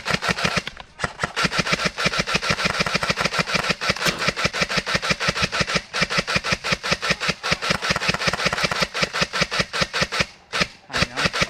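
Airsoft gun firing on full auto: long strings of rapid, evenly spaced shots, broken by short pauses about a second in and near the end.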